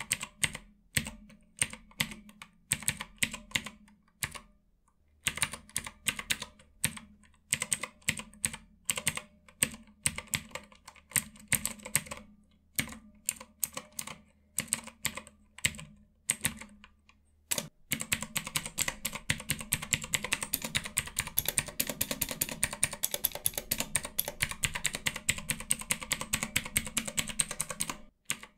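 Keys on a ROTTAY mechanical numpad with Outemu Blue clicky switches being pressed, a sharp click with each keystroke, two or three a second. About eighteen seconds in the presses speed up into a rapid, continuous run of clicks that stops shortly before the end.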